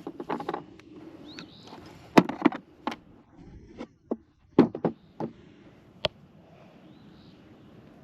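An irregular string of about ten sharp clicks and knocks, some doubled, from objects being handled and set down. Faint short rising chirps of a bird come in a couple of times.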